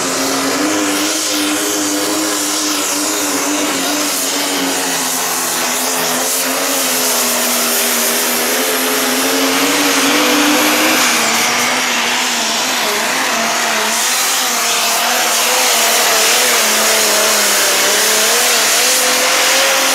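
Pro Stock pulling tractor's turbocharged diesel engine running flat out under load as it drags the weight sled, a loud steady drone whose pitch wavers slightly and shifts a little about halfway.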